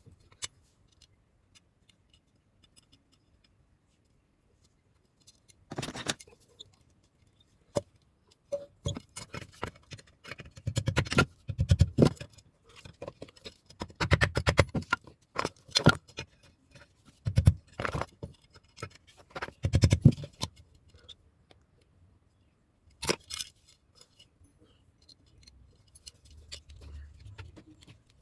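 Metal tools and metal pieces being handled in a blacksmith's work, giving irregular clusters of clinks, taps and scrapes after a quiet first few seconds.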